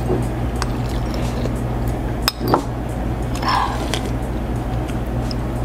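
Spoon clinking against a soup bowl and soup being slurped, with a few sharp clicks, over a steady low hum.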